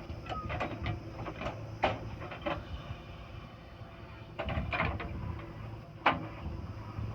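JCB 3DX backhoe loader at work: its diesel engine runs steadily under a series of sharp metallic clanks and rattles, with the loudest knocks about two seconds in and about six seconds in.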